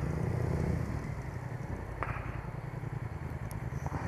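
Motorcycle engine running at low revs with a steady low rumble as the bike makes slow, tight U-turns, with a light click about two seconds in.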